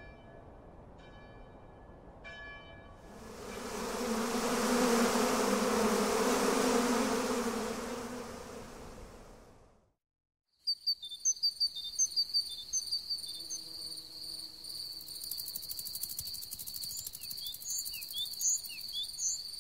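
A loud rushing swell with a low hum builds and fades over several seconds, then cuts to silence. After it, crickets trill steadily in a high buzz, with short scattered chirps over the top.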